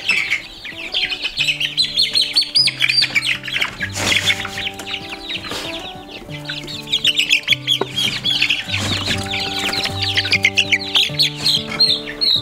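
Young Red Star chicks peeping rapidly and continuously, high-pitched, as they are caught by hand in a brooder. Background music with long, steady low notes plays underneath.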